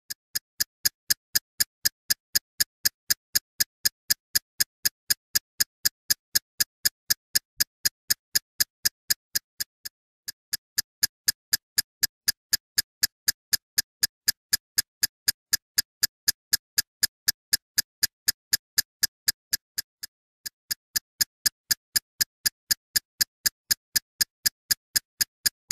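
Steady ticking sound effect, about four sharp ticks a second, laid under a film-countdown intro. It pauses briefly twice.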